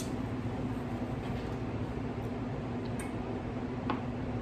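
Steady low room hum with a few faint short clicks, at about three seconds in and again just before four seconds.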